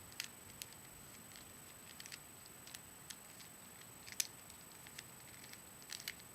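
Rubik's Cube faces being twisted by hand: irregular small plastic clicks and clacks, the loudest about four seconds in.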